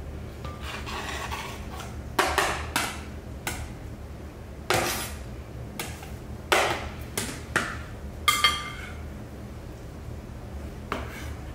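Chef's knife scraping diced salmon off a plastic cutting board into a glass mixing bowl, with about ten sharp knocks as the knife and board strike the bowl. One strike past the middle sets the glass ringing briefly.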